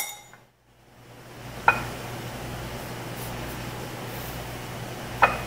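Two light, sharp taps about three and a half seconds apart over a steady kitchen background hum, from food preparation on a countertop, after a brief drop-out near the start.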